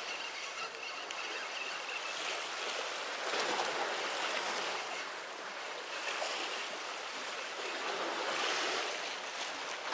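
Sea swell washing against the concrete tetrapods of a breakwater, in surges that rise and ease every second or two.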